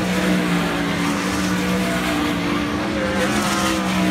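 Winged sprint cars' V8 engines running at speed around the track: a loud, steady engine drone, its pitch held nearly constant.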